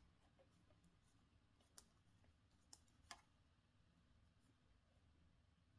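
Near silence with a few faint clicks of knitting needles touching as a cable stitch is worked, three of them between about two and three seconds in.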